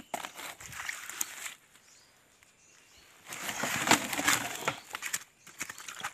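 Fallen leaves and twigs rustling and crackling as a hand pushes through them at the edge of a shallow creek, in two bursts, the second starting about three seconds in and louder.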